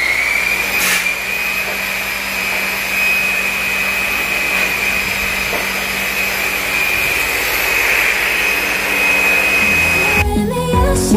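Power buffer buffing an aluminum valve cover with compound on a buff: the motor rises in pitch as it spins up, then runs at a steady high whine over a rushing hiss. About ten seconds in it cuts off abruptly and music begins.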